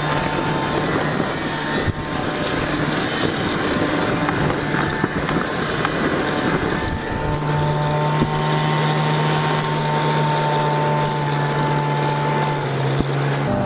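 Polaris snowmobile engine running at a steady speed while towing a sled over snow, heard from the sled behind it under a constant rushing hiss. Its pitch holds level through the second half.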